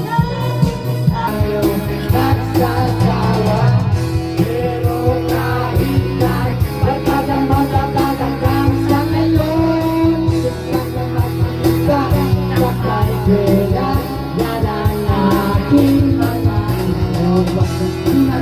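Upbeat rock song with a steady beat, bass, guitar and a singing voice.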